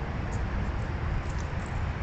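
Low, fluctuating outdoor rumble with a few faint high ticks.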